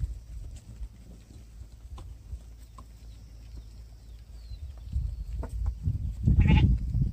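A goat bleats once, loud and wavering, near the end. Before it, faint clicks of hooves as the herd of goats walks past, over a low rumble.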